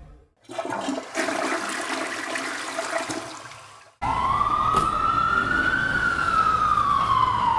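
A toilet flushing, its rush of water fading away over about three seconds. Then, after an abrupt cut, an emergency-vehicle siren wails, rising slowly in pitch, falling, and beginning to rise again near the end.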